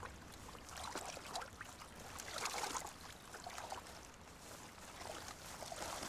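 Shallow water splashing and dripping in a few short bursts, stirred by a polar bear handling a caught fish and stepping through the shallows.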